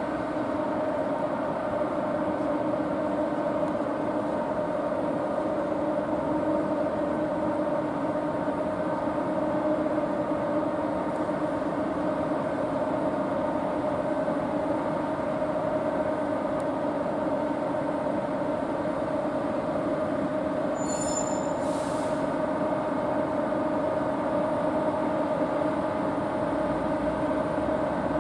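EF64 electric locomotive's cooling blowers humming steadily with several held tones. A brief high-pitched squeak comes a little past two-thirds of the way through.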